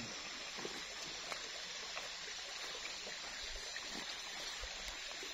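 A stream flowing steadily, with a few faint clicks over it.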